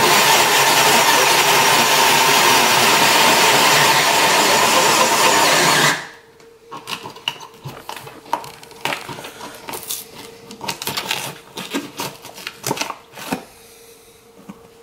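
Cordless drill spinning a hole saw through drywall: a loud, steady grinding for about six seconds that cuts off suddenly, followed by scattered light knocks and clicks.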